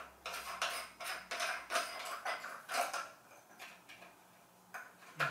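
Hand-turning of the centre threaded fitting on a sunflower rain shower head: irregular rubbing and clicking for about three seconds, then a few sparser clicks.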